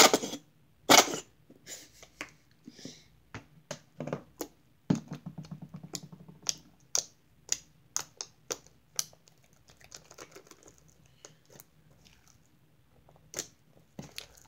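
Sticky slime being kneaded and pressed by hand on a table, giving off quick, irregular clicks and pops. Near the start a squeeze bottle of activator squirts onto it twice, loudly.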